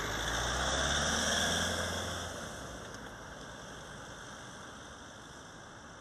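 A vehicle engine running close by, loudest about a second in and fading over the next second or two, leaving a steady hiss of background noise.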